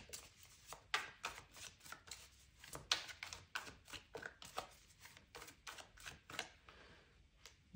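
Tarot cards being shuffled and handled: a run of irregular light clicks and taps that stops about a second before the end.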